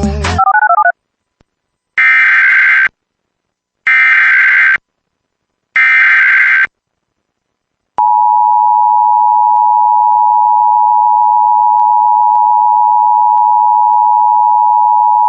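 Emergency Alert System SAME header: three short bursts of warbling digital data tones about two seconds apart, followed about two seconds later by the EAS two-tone attention signal (853 and 960 Hz), a loud steady electronic tone held for about eight seconds. A brief run of stepped beeps sounds at the very start.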